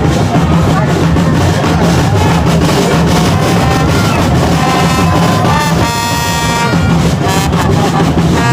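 Loud music with drums and brass, over a dense background. A held, horn-like tone sounds briefly about two-thirds of the way through.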